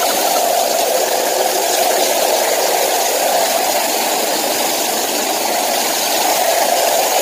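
Loud, steady rush of a heavy curtain of water pouring from an overhead waterfall shower and splashing close to the microphone.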